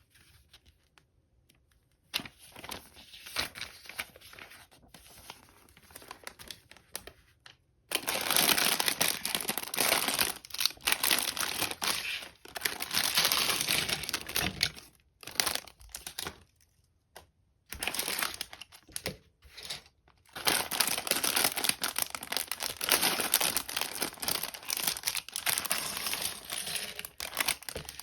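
Plastic LEGO parts bags being crinkled and handled, in bursts broken by short pauses, starting about two seconds in and growing louder from about eight seconds in.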